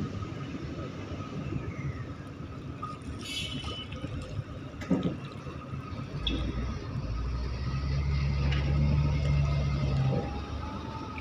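Low, steady rumble of a departing container ship, with a louder low drone setting in about six seconds in and cutting off sharply near the end.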